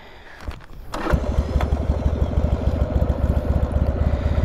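Harley-Davidson Sportster's air-cooled V-twin engine starting about a second in, then idling with a steady, rapid pulsing exhaust beat.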